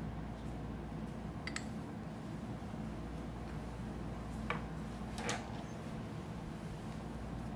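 Light clinks of small glass perfume-oil bottles knocking together as a filled bottle is handled and set down among the others: a faint click about a second and a half in, then two sharper clinks close together past the middle. A steady low hum runs underneath.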